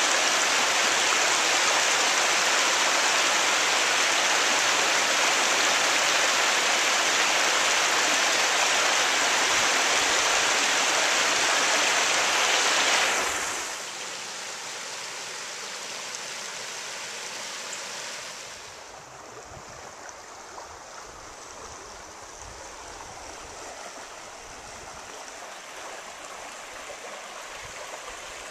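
Creek water pouring over a low, wide rock-ledge waterfall, a steady full rushing. About 13 seconds in it cuts to the gentler, quieter rush of shallow riffles over rocks, which grows fainter still a few seconds later.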